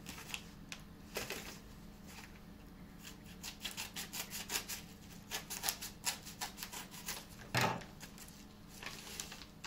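A paper envelope or package being opened by hand: paper rubbing and scratching in a run of quick, close-spaced clicks, with one louder thump about three quarters of the way through.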